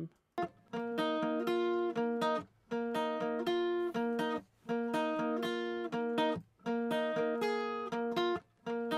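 Recorded acoustic guitar part strumming chords in short phrases with brief breaks between them, playing back while a high-pass EQ filter is swept up to thin out its low end.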